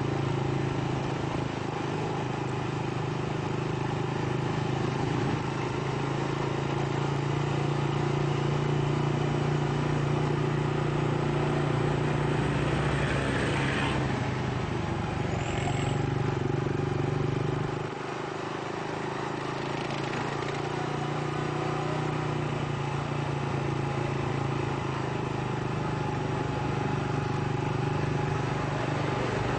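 Steady engine hum and road noise heard from on board a moving vehicle. There is a brief rushing sound about halfway through, and a little later the engine note eases off slightly.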